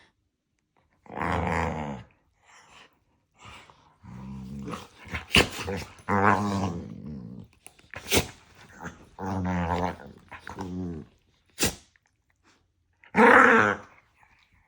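Dogs growling and yapping at each other in a play-argument, not a real fight. About five drawn-out, wavering growl-barks of around a second each, with a few sharp snaps between them.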